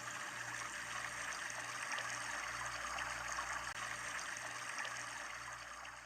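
Faint steady trickling water, like a small stream, fading out near the end.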